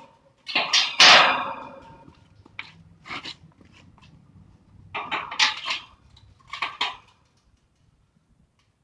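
Sheet metal clanging and banging as an air conditioner unit is taken apart by hand for scrap. The loudest bang, about a second in, rings on for about a second, and a few more clanks follow about halfway through.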